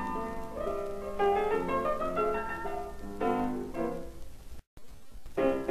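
Piano music from the film's score, slow held notes changing every half second or so; it drops out completely for a moment about four and a half seconds in, then resumes.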